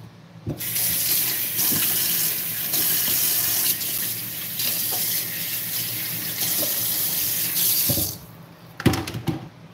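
Kitchen tap running into a stainless steel sink while a plastic bowl is rinsed under it; the water stops about eight seconds in, and a few sharp knocks follow near the end.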